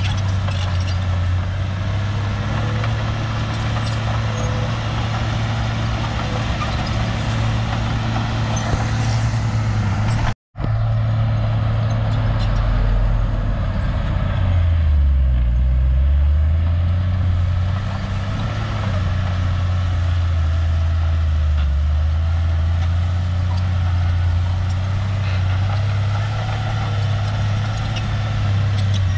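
Crawler bulldozer's diesel engine running steadily with a deep hum. The sound cuts out for a split second about a third of the way in, and around halfway the engine's pitch dips and then recovers.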